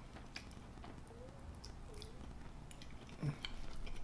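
Faint, close-miked chewing of chili cheese fries, with soft wet mouth clicks scattered throughout.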